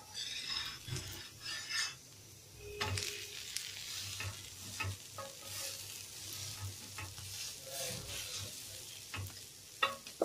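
Adai, a rice-and-lentil pancake, sizzling in oil in a hot pan, with a spatula scraping under it at intervals as it is loosened and lifted.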